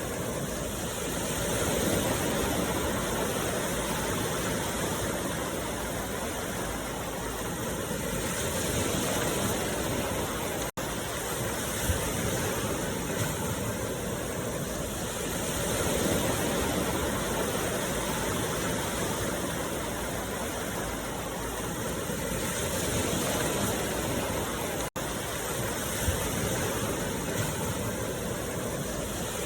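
Steady rushing water noise for meditation, slowly swelling and easing every several seconds, with two brief dropouts, about 11 seconds in and near 25 seconds.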